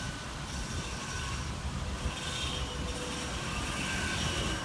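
Heavy diesel truck engine running at a steady low rumble, with faint short high tones coming and going over it.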